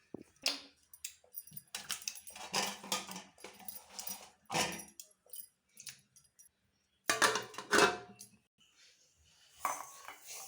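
Irregular clatter of kitchen handling: knocks, clinks and rustles, with a pause of about two seconds in the middle and the loudest knocks a little past the middle.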